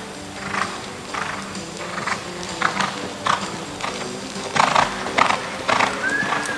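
Reining horse loping on arena dirt: a steady rhythm of hoofbeats, about one and a half strides a second, loudest near the fifth second.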